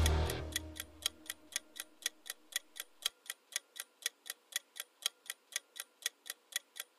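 Countdown timer sound effect ticking like a fast clock, about three to four even ticks a second, counting down the answer time. A low tone left over from the sound before it fades out in the first second or so.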